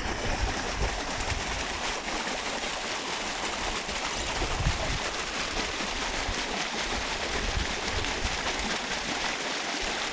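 Steady rushing noise with irregular low rumbles: wind buffeting the microphone.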